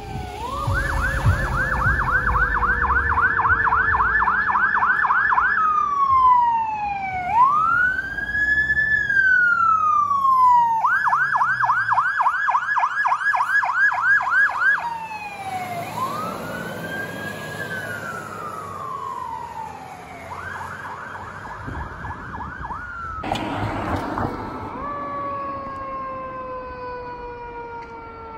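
Fire truck siren cycling between a rapid yelp of about four sweeps a second and a slow rising-and-falling wail, with a second, lower siren tone falling slowly underneath. A brief loud burst, perhaps a horn blast, sounds about three-quarters of the way through.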